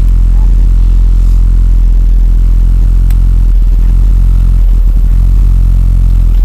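Kobelco SK210 excavator's diesel engine running loudly at a steady speed.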